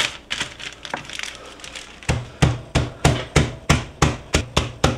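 A beef cutlet in a plastic bag is pounded flat with the bottom of a cast-iron skillet on a wooden cutting board. For the first two seconds the plastic bag crinkles as it is smoothed over the meat. Then come steady, heavy thuds, about three a second.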